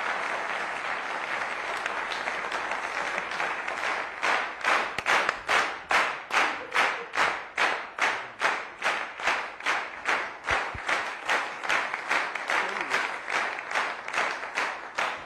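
Studio audience applauding. About four seconds in, the applause turns into steady rhythmic clapping in unison, about two to three claps a second.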